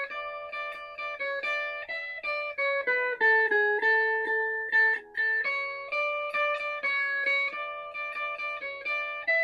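Guitar played with a pick: an instrumental phrase of plucked notes and chords, struck two or three times a second, each ringing on, with a short break about five seconds in.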